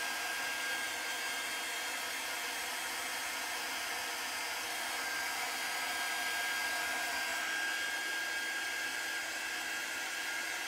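Small handheld craft drying tool blowing steadily, a constant rush of air with a thin steady whine over it. The sound strikes its user as weird and odd.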